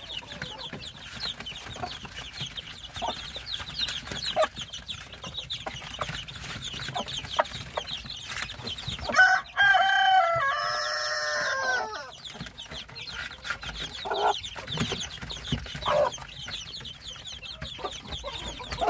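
Native Korean chicks peeping constantly in short high calls. About nine seconds in, a rooster crows once, loudly, for about three seconds. A few lower clucks follow later.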